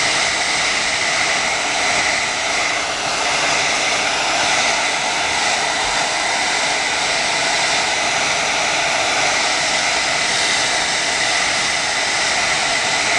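Handheld blow dryer running steadily, a constant whir with a high whine, blowing hot air onto a phone's front to heat the glass so it can be separated from the screen.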